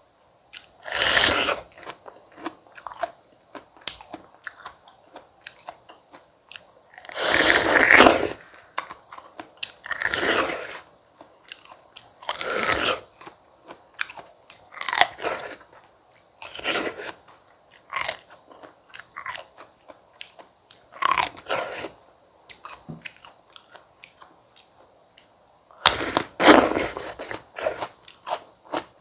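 Close-miked eating of crisp fruit: loud crunching bites every few seconds, with softer wet chewing between them.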